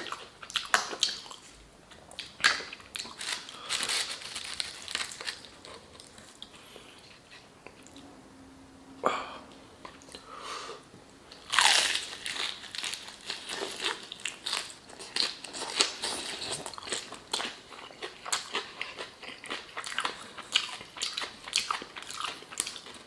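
A person biting and chewing crispy fried chicken close to the microphone: a run of crunches and wet chewing clicks, with louder crunching bites about nine and twelve seconds in.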